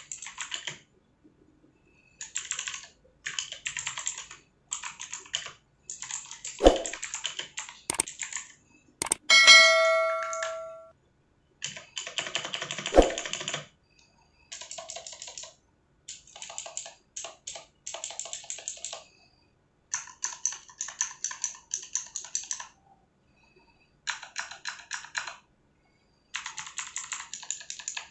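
Outemu Blue clicky mechanical switches on a Gamen Titan III keyboard, typed in quick bursts of sharp clicks with short pauses between. About nine seconds in, a bright ringing ding sounds and fades over a second or so, the loudest moment. A couple of harder knocks come just before and a few seconds after it.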